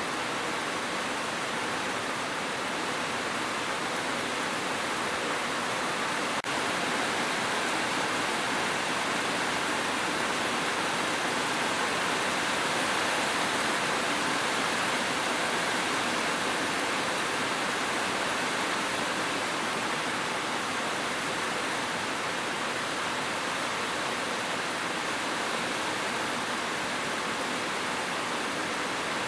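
Steady, even rushing noise of heavy rain, with no single drops standing out; a faint click about six seconds in.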